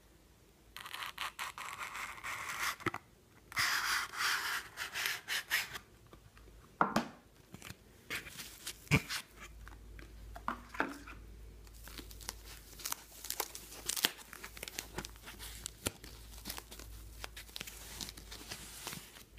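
Cardboard knife-box packaging and a soft white wrapping being handled and pulled apart. Two stretches of rasping, tearing noise come in the first six seconds, then irregular crinkling and small clicks as the wrap around the folding knife is unfolded.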